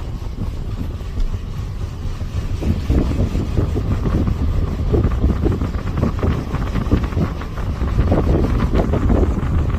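Vehicle driving: low road rumble with wind gusting on the microphone, the gusts growing stronger from about three seconds in.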